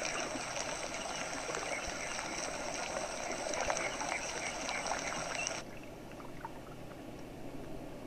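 Water trickling, with faint small ticks mixed in. It cuts off suddenly a little past halfway, leaving a quieter low hiss.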